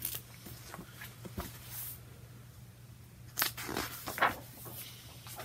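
Pages of a picture book being handled and turned: a few soft, brief paper rustles and brushes, with a low steady hum underneath.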